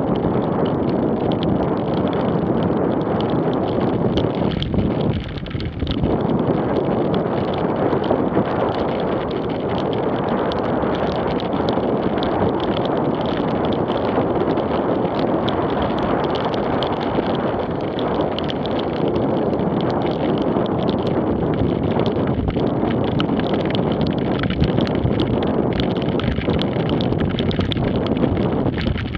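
Steady wind rushing over an action camera's microphone while a recumbent cycle rides at about 15 mph, mixed with the hiss of its tyres on a rain-soaked sidewalk.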